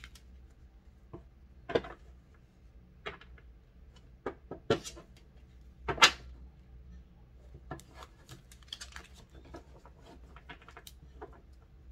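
Tarot cards being handled on a table: scattered light clicks and taps, with a few sharper snaps around two, five and six seconds in, over a faint steady low hum.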